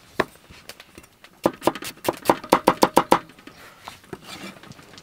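Chef's knife chopping shallots on a wooden cutting board: a single cut near the start, then a quick run of about a dozen rapid knife strokes on the board, about seven a second, followed by a few lighter taps.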